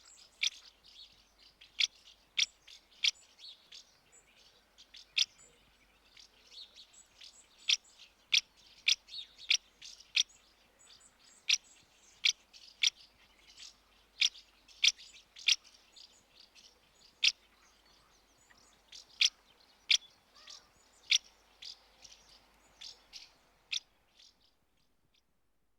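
House martins calling: short, sharp chirps, irregularly spaced, a few every second or two, over softer twittering between them. The calls stop shortly before the end.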